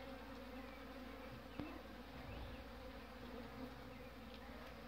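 Honeybees flying close by, a faint steady buzzing, with one small tap about a second and a half in.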